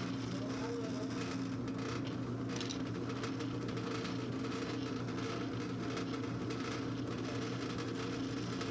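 Drilling machine's spindle motor running with a steady hum while a small pilot drill is peck-drilled into a metal block.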